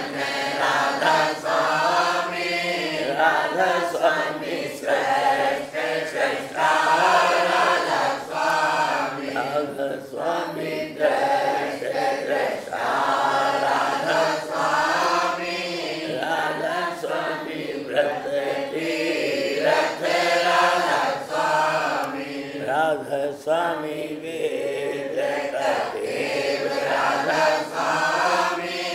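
A group of voices chanting a Radhasoami devotional hymn (shabad) together, a sung refrain repeating 'Radha Soami'.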